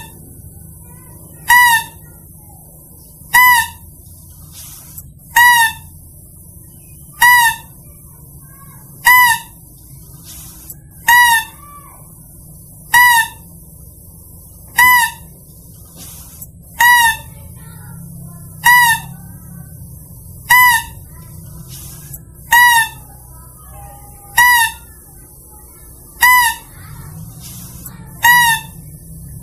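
Mouse-deer (kancil) lure call: a short, high, pitched squeak repeated at an even pace, about one call every two seconds.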